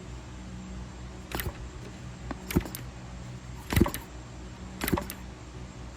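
Gas engine of an RC plane turned over slowly by hand with its spark plug out and grounded, giving sharp clicks at uneven spacing as the plug is tested for spark, over a steady low hum.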